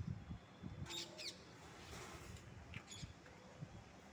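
A few short, faint bird chirps, quick falling notes about a second in and again near the three-second mark, over a faint background hiss. A few soft low thumps come in the first second.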